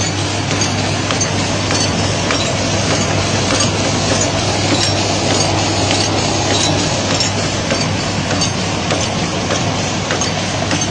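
Automatic cutlery and napkin packing machine running at speed: a steady mechanical clatter over a constant hum, with rapid clicking throughout.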